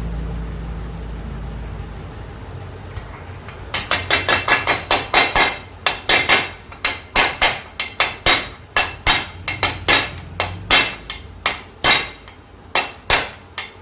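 Hammer driving a new bearing into a TVS XL Super engine case: a run of sharp metallic strikes, about two to three a second, beginning a little under four seconds in. The bearing seat is greased and the freshly washed case is a tight fit. A low hum fades out before the strikes begin.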